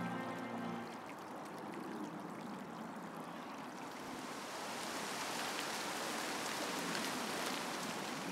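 Steady rush of flowing water, a stream running below. Sustained music ends about a second in.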